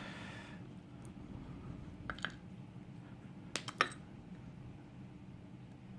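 Small metal lock parts clicking as they are handled: sliders from a dimple euro cylinder core being taken out and set down. There are two pairs of light clicks about a second and a half apart, over a faint steady hum.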